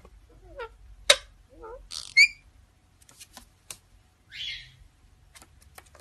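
Indian ringneck parakeets calling: short whistled and gliding notes mixed with sharp squawks, loudest about a second in and again just after two seconds, and a brief harsh, hissing call a little past four seconds.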